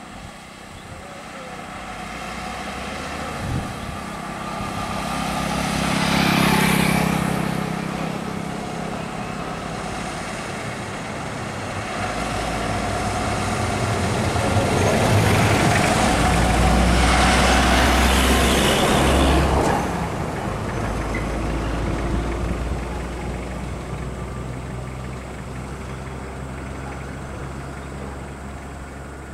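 Road traffic passing close: a heavy truck's diesel engine and a motorcycle running by, with a steady engine hum throughout. It swells twice, briefly about six seconds in and for several seconds past the middle.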